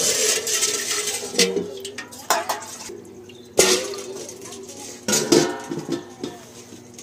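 Metal kitchen utensils, a steel bowl and a metal plate, knocking and clinking as they are set down and moved on a hard floor: a few separate knocks, each ringing on briefly, the loudest about three and a half seconds in.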